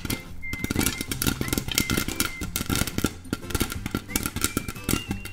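Rapid, irregular popping clicks like popcorn popping, over music with a short, high, gliding melody.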